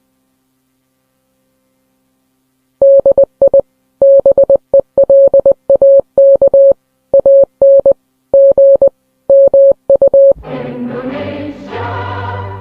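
Dead silence, then a single-pitch electronic beep keyed on and off in short and longer pulses like Morse code, as in an emergency alert broadcast. Choir-like music swells in near the end.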